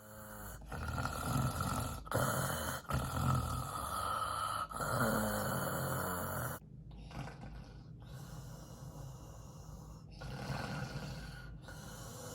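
A person snoring: several long snores, each a second or two, loud for the first six seconds or so, then softer ones.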